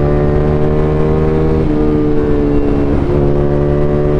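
Ducati Scrambler's V-twin engine running at a steady cruising speed, with the rush of wind over the rider's camera. The engine note shifts slightly twice, about one and a half and three seconds in.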